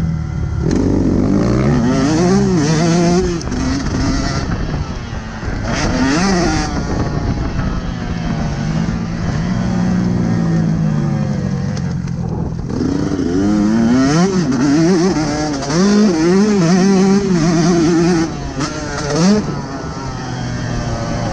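Single-cylinder two-stroke engine of a KTM 150 SX motocross bike, revving hard and repeatedly. Its pitch climbs on the throttle and falls back between pulls, with the throttle briefly shut off a few times.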